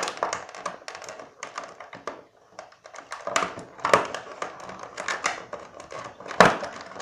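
Plastic pastry packaging being handled and opened: a run of irregular crinkles and clicks, with a few sharper cracks.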